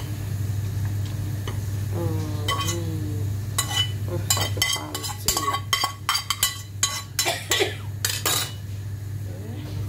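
Metal utensil clinking and scraping against a metal pot as hot meatball soup is ladled out: a quick run of ringing clinks from about three and a half to eight and a half seconds in, over a steady low hum.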